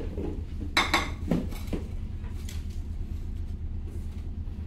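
Dishes and serving utensils clinking as food is served, with a few sharp clinks close together about a second in, over a steady low hum.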